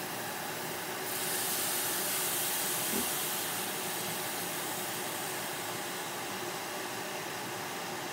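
Lemon juice hitting a hot stainless steel pot of Brussels sprouts and carrots, sizzling and hissing into steam from about a second in, easing off after a few seconds. One light knock about three seconds in.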